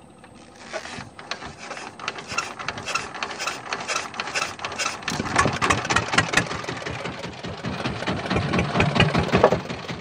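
Small inboard engine of a wooden fishing boat starting up about half a second in, then running with a rapid, even chugging knock that grows louder toward the middle.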